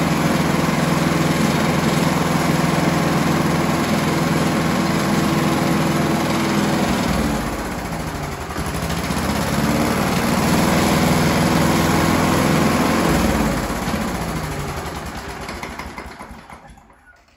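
Briggs & Stratton Sprint 375 single-cylinder four-stroke lawnmower engine running at a steady speed that does not change as the throttle is moved from minimum to maximum: it is under-revving, which the owner suspects lies with the governor springs. It dips briefly twice, then runs down and stops near the end.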